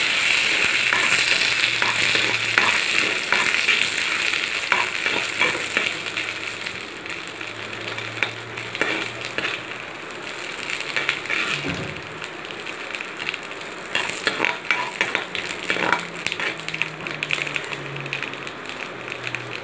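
Hot oil sizzling in a pan with mustard seeds, cumin and lump asafoetida (a tempering), stirred with a steel spoon. The sizzle is loudest at first and grows quieter after about six seconds, with scattered sharp clicks.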